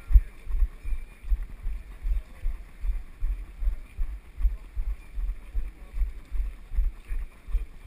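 Running footfalls jolting a body-worn GoPro action camera: a steady rhythm of low thumps, about two and a half a second.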